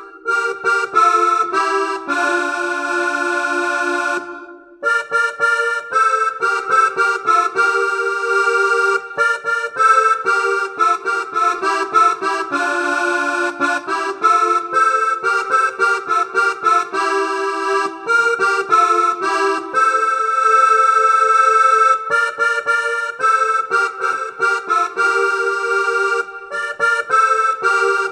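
Yamaha PSR-S670 arranger keyboard playing a melody with chords in an accordion-like voice. The music runs on with one brief break about four and a half seconds in.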